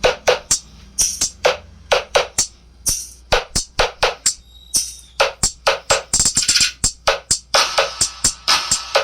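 Music: a fast beat of sharp drum hits with hissy high strokes between them, growing busier near the end.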